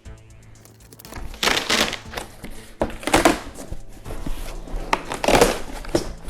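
Packaging being pulled and torn off a pinball machine: three loud rustling, crinkling bursts of plastic wrap or cardboard, each about half a second long, over quiet background music.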